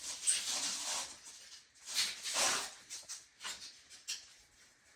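Short scraping and rubbing noises from tile work: a few brief rasps, the longest near the start and about two seconds in, with small scuffs between them.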